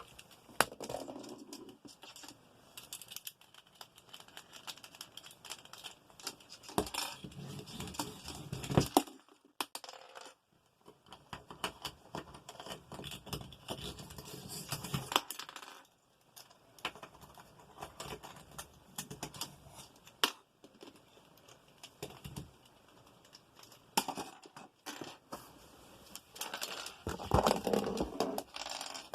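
Irregular plastic clicking, rattling and scraping of a Rubik's cube being handled and chewed by a cockatoo's beak, with busier bursts now and then.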